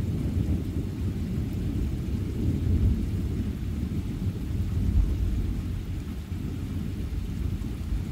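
Thunder rolling in a long low rumble that swells about three and five seconds in and eases off a little toward the end, over steady rain.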